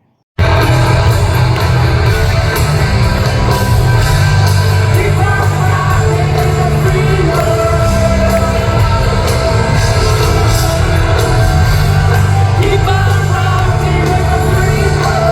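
Live rock music: a band playing with a singer, loud and dense, cutting in suddenly just after the start.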